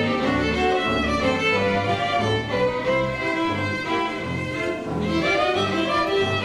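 Small live string ensemble, violins with a double bass, playing a piece together: sustained melody lines above low bass notes repeating at a steady pulse.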